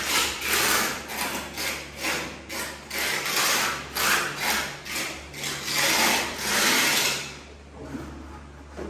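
Trowel scraping and spreading tile mortar, in repeated rough strokes about two a second that stop about seven seconds in.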